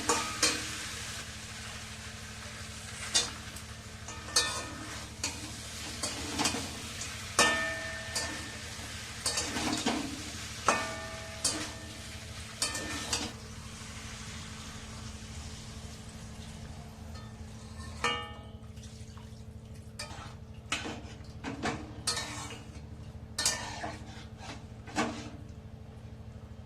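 Metal spoon stirring vegetables in a cooking pan, striking the pan in irregular ringing clinks over a steady frying sizzle that thins out about halfway through. A low steady hum runs underneath.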